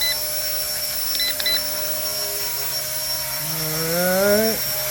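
RC ERA 1/48 scale Huey micro RC helicopter hovering, its small electric motor and rotor giving a steady whine. A few short electronic beeps come right at the start and again about a second and a half in, from the transmitter as the trim is adjusted.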